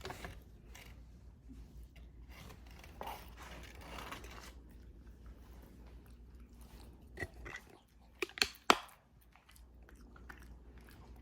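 A dog chewing and crunching a treat: soft, irregular crunching with a few sharper crunches about seven to nine seconds in.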